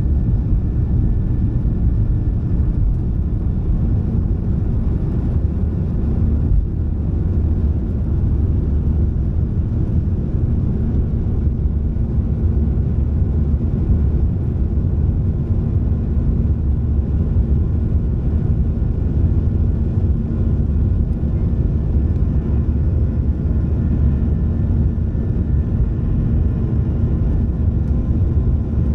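Cabin noise of a Boeing 737-700 at takeoff thrust, heard from a window seat over the wing, through lift-off and into the climb. Its CFM56-7B engines make a steady, loud low rumble, with faint steady tones above it.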